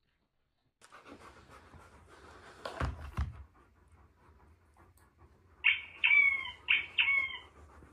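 A dog gives four short, high whines in quick succession, each dropping in pitch at its end, after a dull thump about three seconds in.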